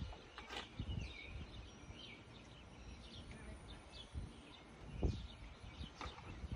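Outdoor background noise with birds chirping, a few light handling clicks and one dull thump about five seconds in.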